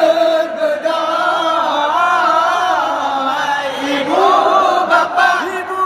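Men's voices chanting a melody together, with long held notes that waver and bend up and down in pitch.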